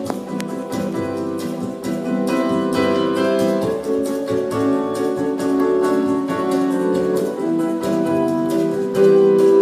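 Electronic keyboard playing instrumental music, a melody of quick successive notes.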